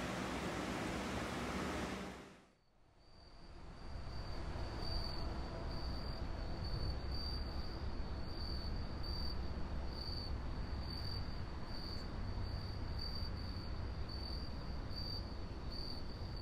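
Steady wind hiss that fades out about two seconds in. Then a cricket chirping in an even pulse, about two chirps a second, over a low steady rumble.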